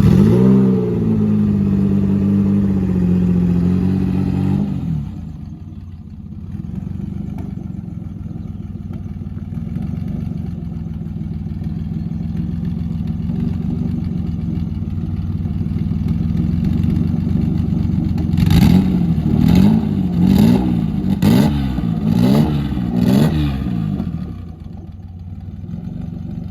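Turbo Mazda MX-6's four-cylinder engine just started, running at a high idle that drops and settles after about five seconds. Later it is revved about six times in quick succession, each rev rising and falling.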